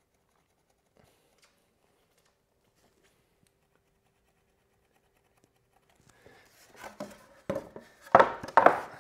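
Near silence for about six seconds, then a pressure-treated timber board being shifted and slid over the wooden table-top boards: scraping and rubbing with a few knocks, loudest twice near the end.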